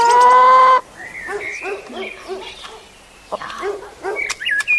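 A hen calling: one long drawn-out note that rises slightly in pitch, then a run of short, soft clucks a few times a second. Small birds chirp in the background.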